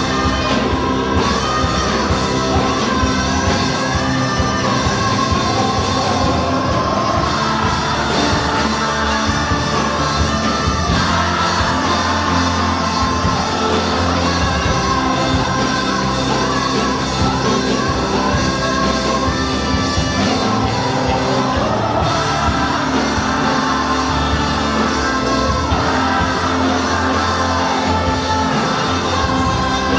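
Live gospel band performance: a singer's voice carries a melody over full-band accompaniment with a steady low bass, heard in a large hall.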